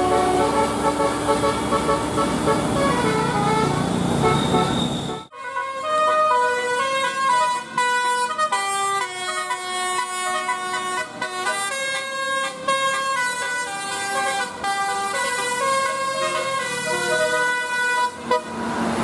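Bus telolet horn, a set of switched multi-tone air horns, playing a tune in stepped notes. The background rumble drops out suddenly about five seconds in, leaving the melody clean, and returns just before the end.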